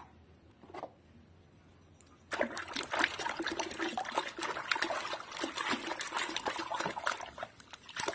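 A hand swishing a small plastic toy through a tub of foamy soapy water. Quiet at first, then from about two seconds in, continual sloshing and splashing with small knocks.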